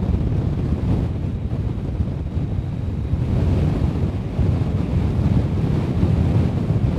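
Wind buffeting the microphone outdoors: a loud, low rumble that swells and eases with the gusts.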